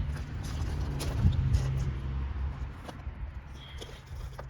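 A car engine idling steadily with a low hum that fades toward the end, with a few faint scattered clicks.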